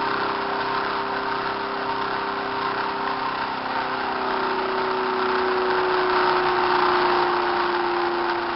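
4-pole, 8-transistor pulse motor running with a steady whirring hum. From about halfway through, its tone slides slightly lower as the rotor slows under the load of the generator coil being hooked up.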